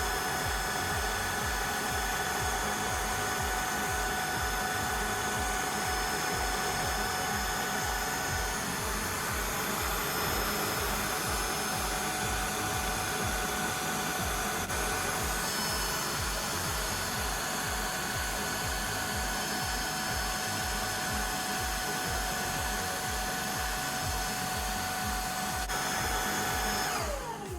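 Tineco Floor One S3 cordless wet-dry floor washer running steadily, its motor giving a constant whine over a hiss of suction, with a regular low pulsing underneath. Near the end the motor switches off and the whine falls away as it spins down.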